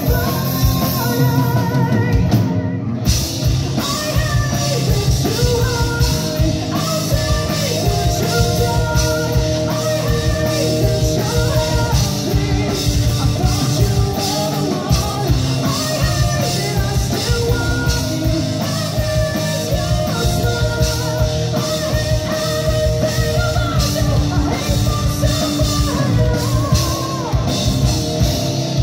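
A live rock band playing: electric guitars, bass guitar and drum kit, with a woman singing over them.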